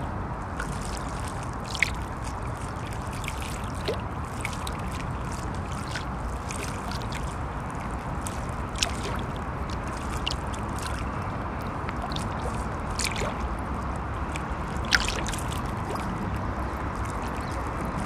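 River water lapping against the bank, with small sharp splashes every few seconds as wavelets break, over a steady low rumble of heavy traffic crossing the bridge.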